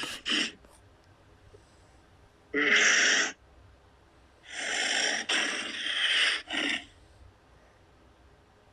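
Custom-made Godzilla monster sound effect: rasping, breathy bursts with no clear pitch. Two quick ones come at the start, a single burst about two and a half seconds in, and a longer broken one from about four and a half to seven seconds.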